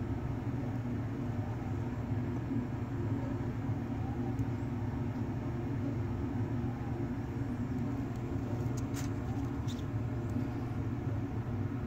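A steady low mechanical hum, with a couple of faint brief ticks about nine seconds in.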